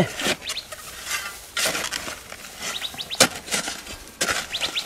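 Metal hoe blade striking and scraping dry, clumpy soil in about four separate strokes, filling in the planting hole around a newly set maguey. Short bird chirps sound between the strokes.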